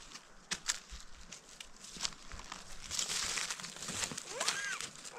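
Footsteps crunching and rustling through dry fallen leaves, irregular crackles that thicken into a denser rustle about three seconds in. A short call that rises and falls in pitch comes near the end.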